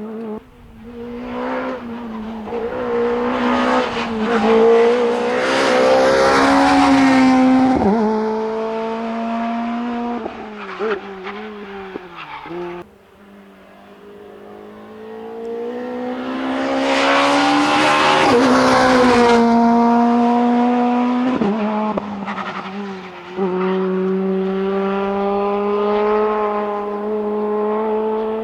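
Opel Adam R2 rally car's engine driven flat out, swelling loud as it passes twice. Its pitch drops sharply several times as the driver shifts gear and lifts for corners.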